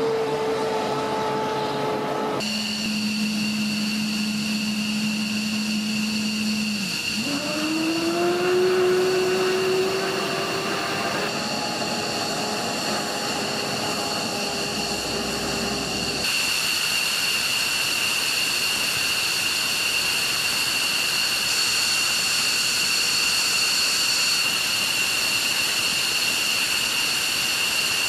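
F-15E Strike Eagle jet engines running on the ground: a steady whine whose pitch changes abruptly at each cut. About seven seconds in, a tone rises as an engine spools up. From about sixteen seconds, a higher-pitched whine over a rush of noise.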